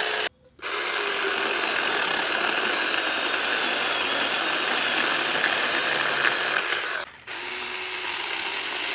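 Saker 20-volt cordless mini chainsaw with a 4-inch bar running and cutting wood. It stops for a moment just after it starts, runs steadily, and cuts out briefly about seven seconds in before running on a little quieter.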